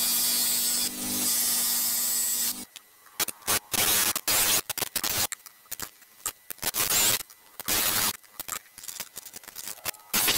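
Electric scroll saw running and cutting through a dry block of wood, stopping abruptly about two and a half seconds in. Then irregular short scraping strokes with pauses, from the wood being shaped by hand.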